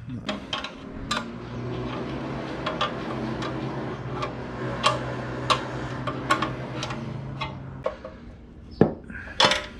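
Small metal clicks and clinks of nuts, bolts and a combination wrench as the side-pipe flange bolts are threaded on and tightened, irregular throughout, with a few louder clanks near the end. A steady low hum runs underneath and stops about eight seconds in.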